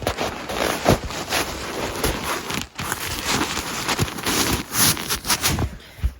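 Fast, aggressive ASMR ear-cleaning sounds: dense scratching and crackling broken by many sharp clicks, easing off near the end.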